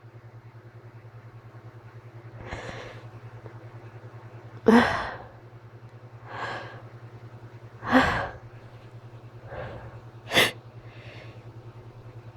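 A person's allergic sneezing fit. Two loud sneezes come about four and a half and eight seconds in, and a shorter, sharp one near ten seconds, with gasping in-breaths between them.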